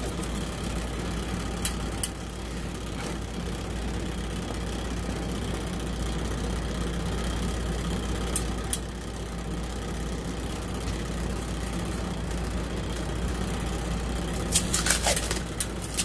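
Steady low background hum with a few light clicks as electrical wires and small plastic connectors are handled on a tabletop, and a quick run of scratchy clicks near the end.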